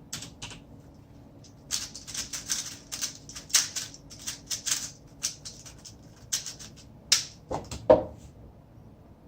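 A Rubik's cube being handled and turned: irregular runs of quick plastic clicks and rattles, with a louder knock near the end.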